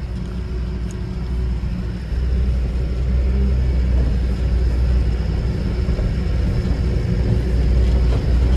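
Truck's diesel engine pulling up a steep climb, heard from inside the cab as a deep, steady sound that gets louder about two seconds in.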